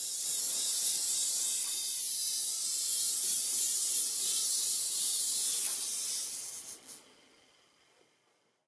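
A steady, loud high-pitched hiss that fades out over the last two seconds.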